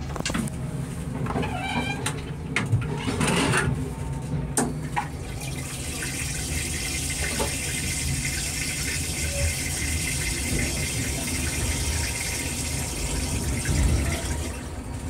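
A Metro-North M3 railcar's stainless-steel toilet flushing: a few knocks and clatter, then a steady hiss of blue flushing water rinsing the bowl for about nine seconds before it stops. Underneath is a low rumble from the train.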